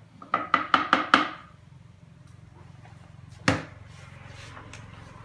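A quick run of about five sharp knocks with a short ring, then a single louder knock about three and a half seconds in.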